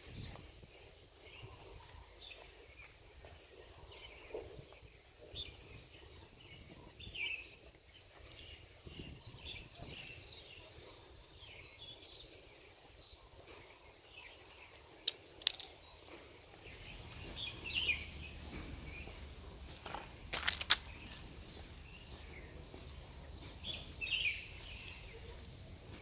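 Small birds chirping and twittering in garden trees, many short high calls scattered through, with a few sharp clicks near the middle.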